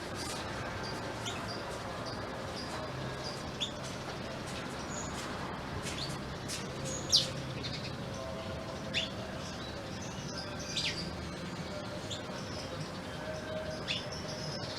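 Black-throated canary (blackthroat) giving sparse, high, short chirps and quick downward-sweeping notes, the loudest about seven seconds in, over a steady low background hum.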